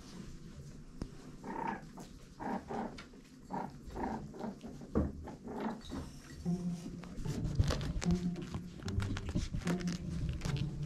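Fox kits calling: a string of short whines and yips, running into more continuous growly calling in the second half.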